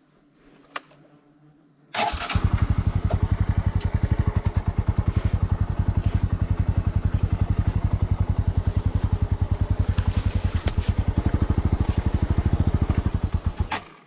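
Bajaj Boxer 150's single-cylinder four-stroke engine starts about two seconds in and idles steadily with an even pulsing beat, then cuts off just before the end. It is running again after the bike sank in deep water, with no emulsion showing in the oil.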